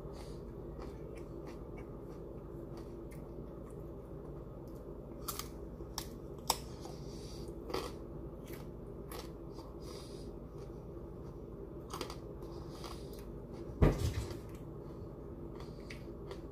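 Close-up chewing and biting of broccoli florets: scattered short crunches and clicks over a steady low hum, with one louder thump late on.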